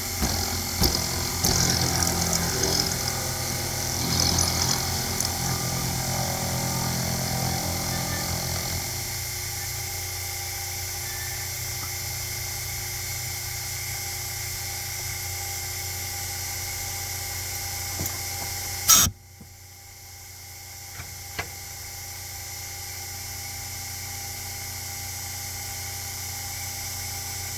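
Sherline benchtop milling machine's spindle motor running, with the end mill scraping and chattering unevenly as it cuts a keyway slot for the first third or so, then spinning more steadily without the cutting noise. About two-thirds of the way in there is a sharp, loud click, and the running noise drops off suddenly, leaving a quieter hum that slowly grows.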